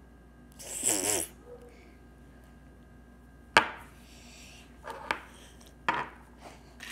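A short, wavering vocal sound about a second in. Then a sharp click a little past halfway and a few lighter taps, from small hard objects being handled.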